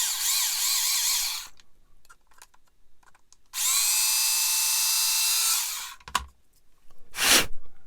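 Electric drill widening small holes in plastic model kit parts: a motor whine that wavers in pitch as the bit bites, stops about a second and a half in, then spins up again about three and a half seconds in, runs steadily for two seconds and winds down. A short, loud burst of noise follows near the end.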